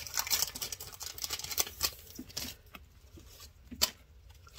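Foil wrapper of a Pokémon card booster pack crinkling and rustling as it is worked open by hand. The crackle is dense for about two and a half seconds, then thins to a few light clicks and rustles of handling, with one sharper click near the end.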